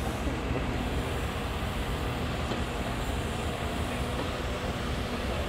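Wheeled excavator's diesel engine running steadily, a low rumble with a faint constant hum.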